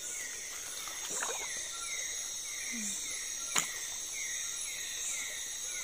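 Night chorus of insects: a steady high-pitched buzz with a short falling chirp repeating two or three times a second. A single sharp click comes about three and a half seconds in.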